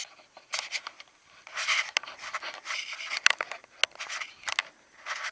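Irregular scraping and rustling with sharp clicks, as of objects being handled and moved about.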